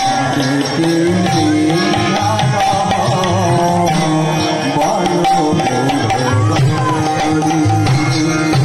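Indian devotional music with hand-drum strokes under a sustained melodic instrument line, played steadily throughout.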